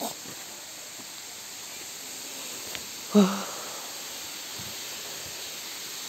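Steady rushing hiss of a waterfall's falling water, with a short loud exclamation from a person about three seconds in.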